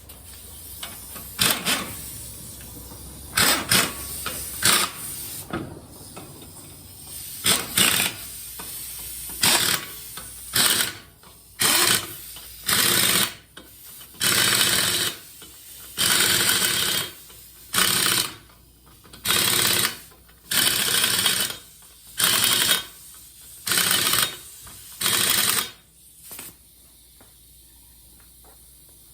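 Impact wrench running the wheel's lug nuts on in a string of loud mechanical bursts: short and irregular at first, then a dozen or so evenly spaced bursts about a second long, stopping near the end.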